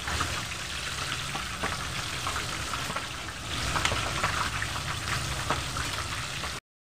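Battered chicken pieces deep-frying in hot oil in a wide pan: a steady sizzle with scattered pops and crackles. The sound cuts off abruptly near the end.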